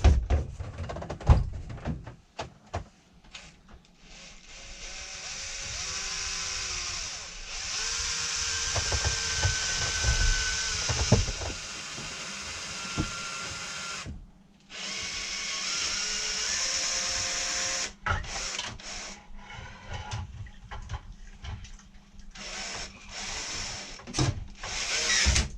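Electric drill boring holes to fit a bolt lock. It runs steadily in two long stretches with a short break between, and there are knocks and handling clicks before and after.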